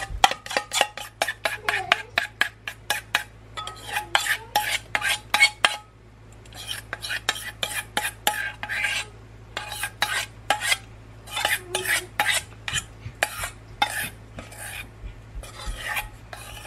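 A metal spoon scraping and knocking inside a stainless steel saucepan in quick, repeated strokes, scraping out a thick sauce, with a faint metallic ring. The strokes pause briefly about six seconds in, then resume.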